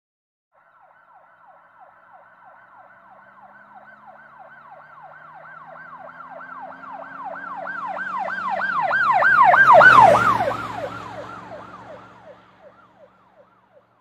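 Emergency vehicle siren in a fast yelp, rising and falling about three times a second, going past. It grows louder, peaks about ten seconds in with a drop in pitch as it passes, then fades away, with a low engine drone underneath.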